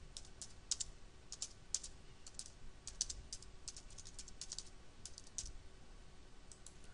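Faint typing on a computer keyboard: quick, irregular keystrokes as a line of text is entered, thinning out near the end.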